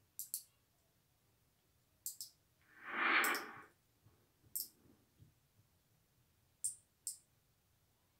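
A few faint, sharp clicks, mostly in pairs, and about three seconds in a breathy exhale lasting about a second, the loudest sound.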